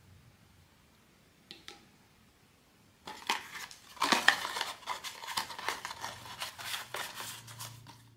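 Blind-box packaging being handled and opened: two faint clicks, then about three seconds in a dense, irregular run of crackles and rustles that lasts about five seconds.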